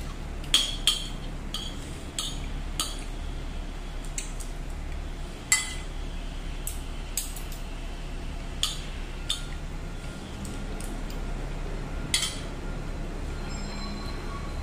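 Metal fork and spoon clinking and scraping against a ceramic plate while eating: about a dozen sharp clinks at irregular intervals, the loudest about half a second in and around five and a half seconds in. A steady low rumble runs underneath.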